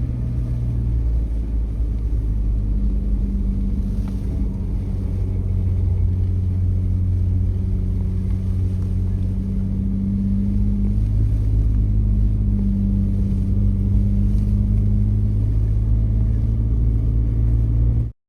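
A car running, with a steady low engine and road rumble and a faint engine hum that drifts a little in pitch. It cuts off suddenly at the very end.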